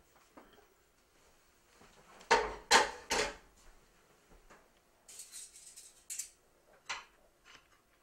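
Metal cookware clattering: three loud knocks of a saucepan and spoon about two to three seconds in, then lighter metallic clicking and scraping, and a single click near the end.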